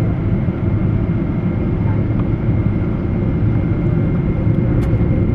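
Steady cabin noise inside a Boeing 777: a low rumble of the engines and airflow, with a thin steady high tone over it.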